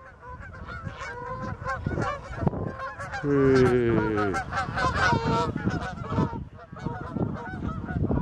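A flock of geese honking in flight, many overlapping calls, loudest about three to five seconds in as the flock passes low overhead. A low steady hum sounds under the calls for about a second around three seconds in.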